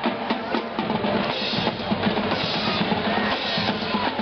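Parade music led by drums, bass drum and snare beating a steady rhythm.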